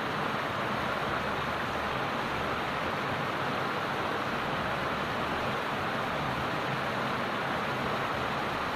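Steady rush of running stream water, an even, unbroken sound with no separate splashes.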